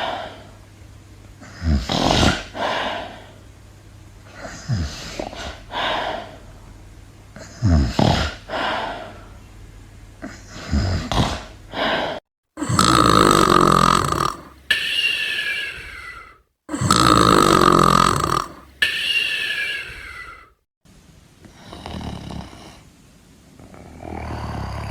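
Snoring sound effects spliced together: a run of rhythmic snores about every three seconds, then, after abrupt cuts, louder snores carrying a steady high tone and a pitch that slides downward, then softer snores near the end.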